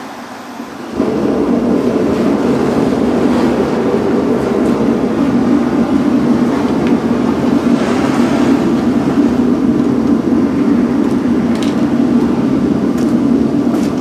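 Forced-air propane burner of a home-built furnace, with its small blower fan, catching about a second in: a quieter hiss jumps to a loud, steady burner rush that holds.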